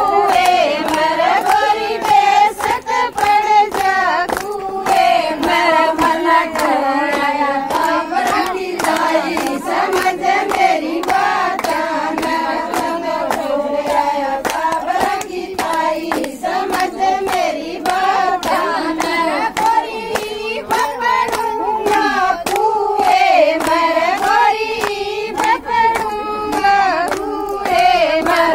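Group of women singing a Haryanvi folk song together, with steady rhythmic hand-clapping at about two to three claps a second.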